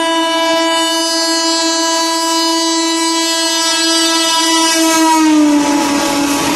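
WAP-7 electric locomotive's horn held in one long blast as the train approaches at speed; its pitch drops about five seconds in as the locomotive passes. The rush and rumble of the coaches going by follow.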